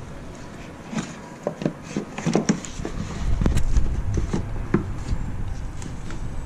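Hard plastic air filter housing of a 2017 Nissan Sentra knocking and clicking as it is pushed and worked into its seat, with its tabs sliding into their slots: a run of sharp taps and clicks, and a low rumble about halfway through.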